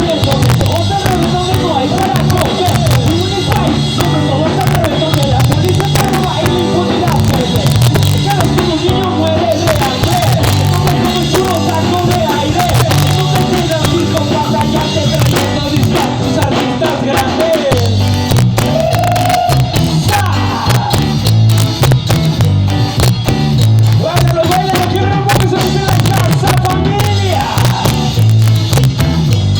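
Live ska band playing loud through a PA, with drum kit, a pulsing bass line and a wavering melody line, recorded from the audience with rough, overloaded sound.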